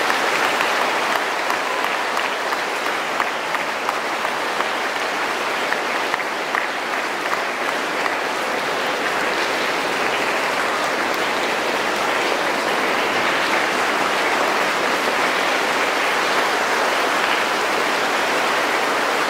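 An audience applauding, a steady, dense clapping that keeps up without a break.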